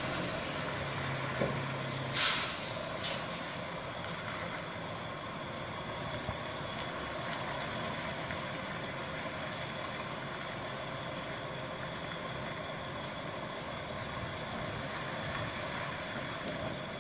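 Semi-truck engine running steadily, with two short air-brake hisses about two and three seconds in.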